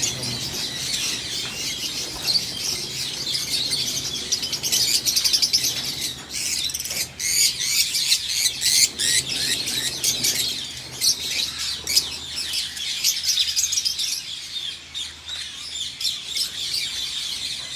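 A flock of lovebirds chattering, a dense mass of shrill, rapid chirps and calls overlapping throughout, busiest in the middle.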